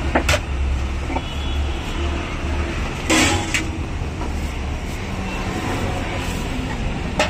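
Street traffic running by with a steady low rumble, broken by a few sharp clatters, the loudest about three seconds in.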